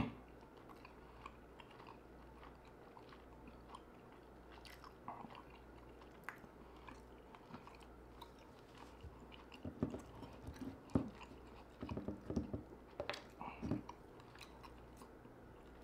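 Close-miked chewing of a bite of ribeye steak with steak sauce: quiet at first, then a run of louder wet mouth clicks and smacks in the last third.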